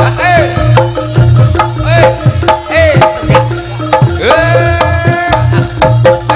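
Live jaranan ensemble music driven by hand drums whose strokes bend in pitch, over a steady low bass, with one long held note a little past four seconds in.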